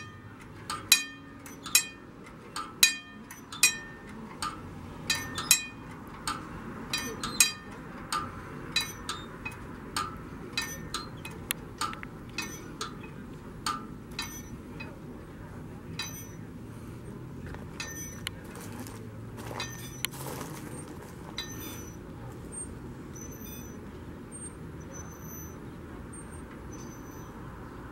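Wigwag railroad crossing signal of the Magnetic Flagman type swinging its banner, its bell ringing with each swing about once a second. The strikes grow steadily fainter and fade out about halfway through as the signal winds down.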